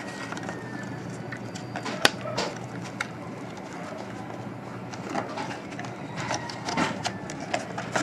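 Intel retail cardboard box and its clear plastic packaging being handled and closed up by hand: scattered clicks and rustles, with a sharp click about two seconds in and more frequent handling noises in the last few seconds, over a faint steady low hum.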